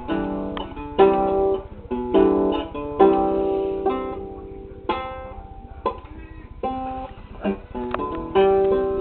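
Handmade Anglo-Saxon lyre being strummed and plucked, each chord ringing out and fading before the next, roughly one a second at an uneven, unmetered pace.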